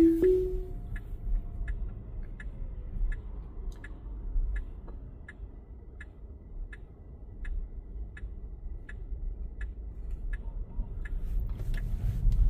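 Car turn-signal indicator ticking steadily, about one and a half ticks a second, over low cabin rumble in a Tesla Model S Plaid. A short tone sounds at the very start, and the rumble grows near the end as the car pulls away.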